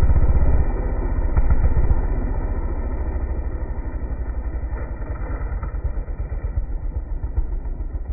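Homelite chainsaw engine running while the chain cuts out through the bottom of a log and into the dirt. A deep, pulsing engine sound, loudest in the first two seconds, then settling lower into a slower throb.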